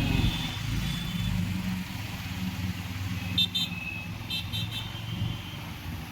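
Road traffic: vehicle engines running in a steady low hum, with several short horn toots in two quick clusters past the middle.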